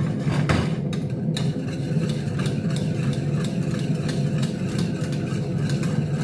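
Steady low hum of a kitchen range-hood fan running, under a metal spoon stirring and scraping thickened béchamel sauce in an aluminium pot in a run of even strokes.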